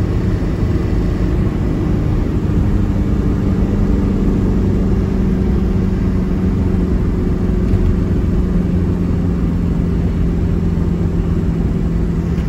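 A car driving along the road, heard from inside the cabin: a steady low rumble of tyres and engine with a constant hum.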